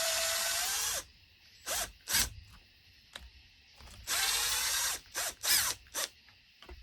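Impact driver hammering as it spins off 11 mm nuts: two runs of about a second each, with several short quick trigger blips between and after.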